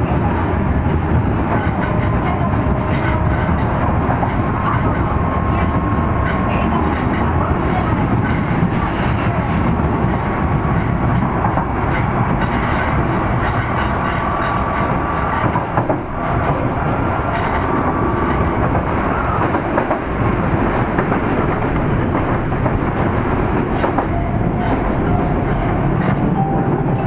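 Running noise heard inside an Osaka Metro 30000 series subway car, with Mitsubishi IGBT-VVVF traction, travelling through a tunnel. There is a steady rumble of wheels on rail with occasional clicks and a faint thin whine, and the rumble dips briefly about sixteen seconds in.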